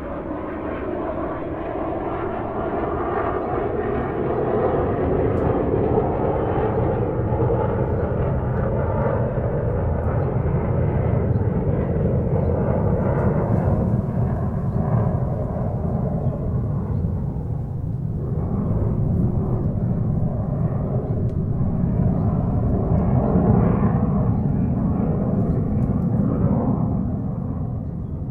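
Airplane engine and wind noise heard inside the passenger cabin: a steady, dense rushing sound that grows over the first few seconds and then holds.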